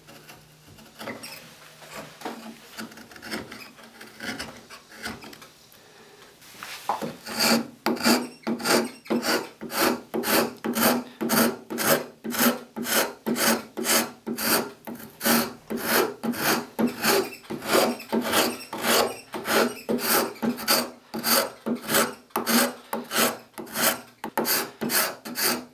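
A hand file or rasp shaping the end of a softwood 2x4 plane body. It starts with lighter, uneven scraping, then settles about six seconds in into loud, even rasping strokes, a few a second.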